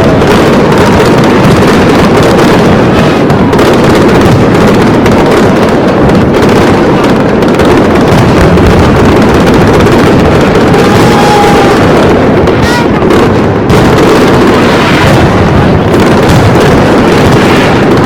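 Fireworks display going off continuously: a loud, unbroken din of bursts and crackle, with voices of onlookers mixed in.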